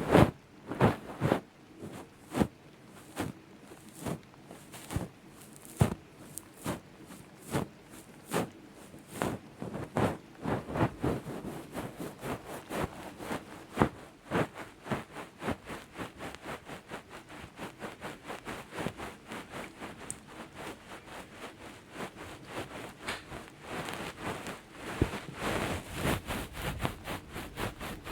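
Close-up ASMR ear-picking and gripping sounds on a microphone ear: irregular clicks, scratches and rubbing strokes. They come every half second or so at first, grow denser and busier after about ten seconds, and turn into a near-continuous scratchy rubbing towards the end.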